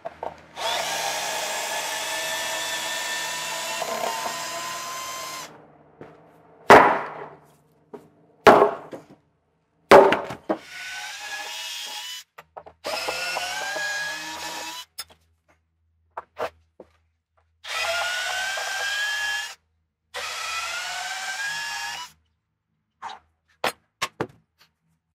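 Cordless drill-driver running screws in a wooden frame, in five separate runs of a few seconds each, its motor pitch rising through each run. Three loud wooden knocks fall between the first and second runs.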